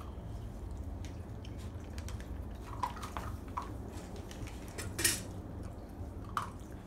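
A puppy eating dry kibble from a stainless steel bowl: scattered small clicks and crunches of kibble against the metal, with one sharper clink about five seconds in.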